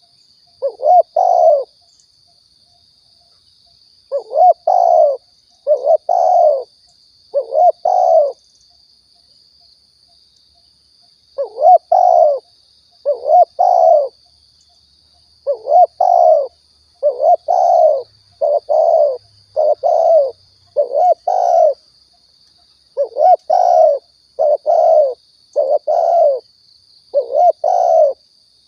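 Spotted dove (tekukur) cooing, a recorded call for luring doves: short phrases of two or three arched coo notes, repeated every second or two with a few longer pauses.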